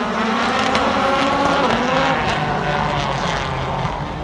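Several rallycross cars' engines racing at high revs as a pack, their pitches rising and falling with acceleration and gear changes, loudest a second or two in and easing off near the end.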